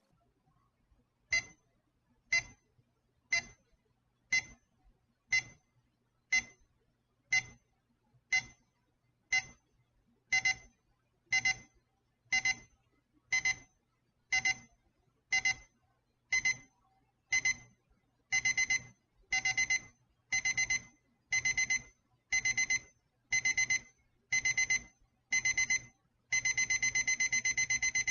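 MoKo mini digital alarm clock's alarm going off: a high electronic beep repeated about once a second, the beep groups growing longer in steps until, near the end, the beeping runs on without a break.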